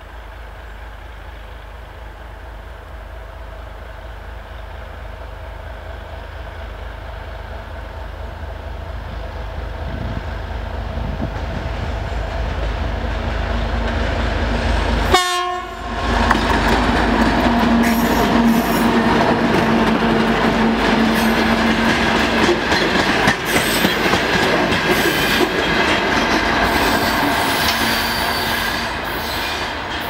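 DM62 diesel locomotive's two-stroke V12 diesel running under load, growing steadily louder as it approaches. A little past halfway there is a short horn toot as it reaches the camera. The gondola wagons then roll past loudly, their wheels clicking over the rail joints.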